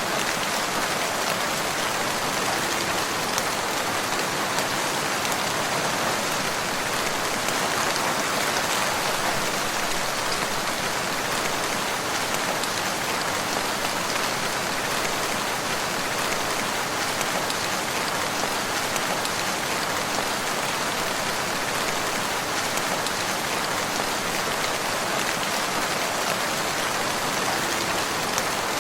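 Steady rain falling, an even, unchanging hiss of many drops with no thunder.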